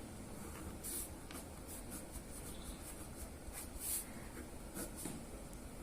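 Faint, short scratches of a pen drawing on paper, a few strokes spaced irregularly, over a low steady room hum.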